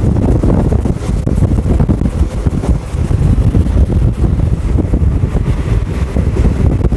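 Heavy wind buffeting a microphone held outside a moving passenger train coach, over the low rumble of the coach running along the track.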